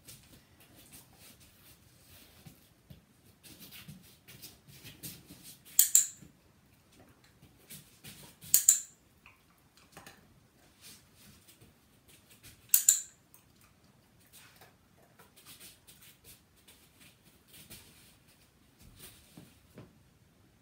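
A dog-training clicker sounding three times, each a sharp double click, about six, eight and a half and thirteen seconds in, marking the dog's moves around its target. Faint taps and rustles of the dog moving on the mat come in between.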